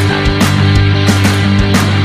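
Rock music with distorted guitar and steady drum hits.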